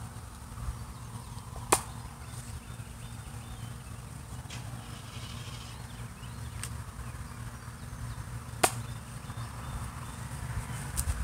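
Nerf Fortnite Micro RL, a small spring-powered dart blaster, being worked and fired: two sharp plastic snaps about seven seconds apart, with a few faint ticks between. A steady low outdoor rumble lies underneath.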